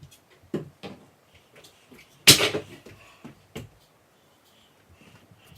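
Knocks and thuds from work on kitchen cabinets: a few light knocks, one loud bang about two seconds in, and another knock a second later.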